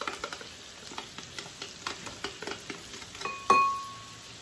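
Sriracha being scraped from a small glass jar into a glass bowl with a spatula, making light scattered clicks and taps against the glass, then one sharp glass clink about three and a half seconds in that rings briefly.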